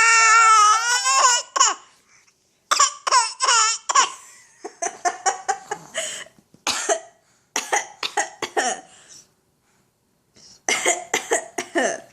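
A young child's high-pitched squeal, then repeated clusters of short, sharp coughs mixed with laughter: a playful copy-cat cough.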